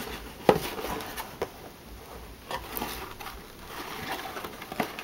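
Cardboard toy box with a plastic blister window being handled and turned over: a few soft scattered taps and light rustling.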